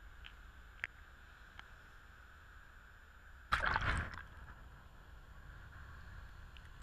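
A wash of shallow seawater splashes over a camera lying on the wet sand: one loud, rushing splash of under a second about halfway through. Otherwise low, steady wind and surf noise with a few faint ticks.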